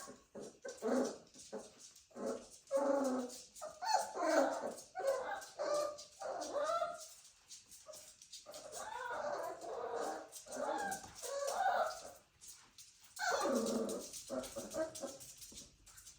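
Young dachshund puppies whimpering and yipping, a string of short, high cries, some overlapping, with a louder run about two thirds of the way through.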